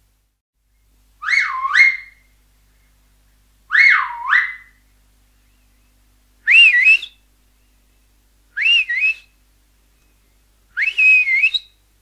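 Five short, loud finger whistles, each gliding up and down in pitch. The first two swoop low-high-low-high, and the last three are higher and more wavering.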